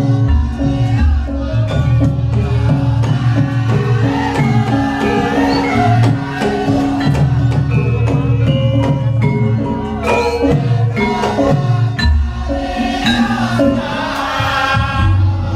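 Javanese gamelan-style ensemble music played through a sound system during a sound check: struck metallophones and drums in a steady rhythm, with a voice singing near the end.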